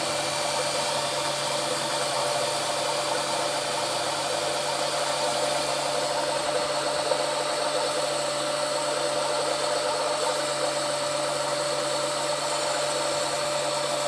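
Small electric oil-extractor pump motor running steadily with a constant hum and whir as it sucks the old engine oil out of the generator's crankcase through a tube.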